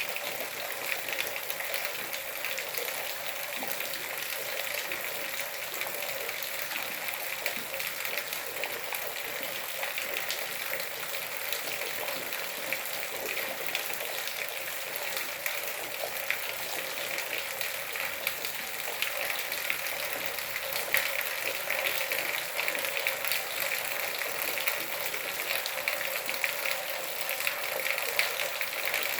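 Steady rain, a dense patter of drops with no let-up, a little louder in the last third.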